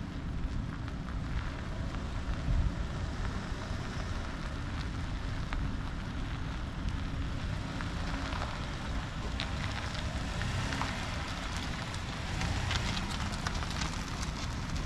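Wind buffeting the microphone, with a scattering of faint crackles that come more often from about halfway through.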